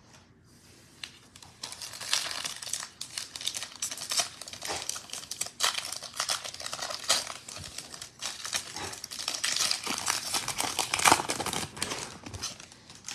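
Foil trading-card pack crinkling as it is handled and torn open by hand. It starts about a second and a half in, with irregular crackles and rips that are loudest near the end.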